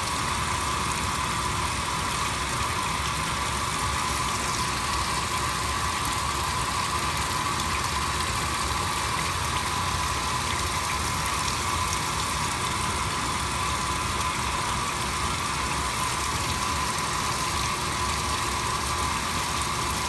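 Speed Queen top-load washing machine filling: water pouring steadily into the tub beside the agitator, an even rushing sound at constant level.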